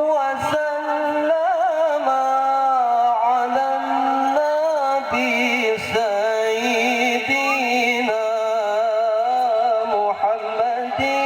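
A voice chanting an Arabic shalawat in long, unbroken melismatic phrases, the pitch winding up and down through held notes.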